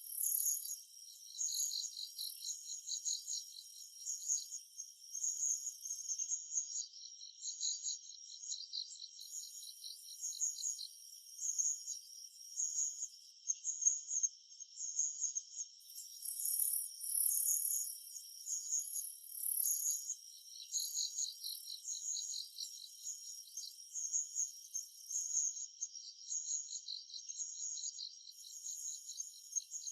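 Summer forest insect chorus: rapid, continuous pulsed chirping, with a higher, shriller trill that comes and goes in stretches of several seconds.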